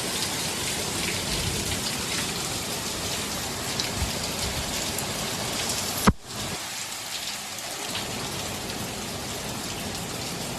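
Heavy rain falling steadily in a storm. About six seconds in there is a single sharp click, after which the rain is slightly quieter.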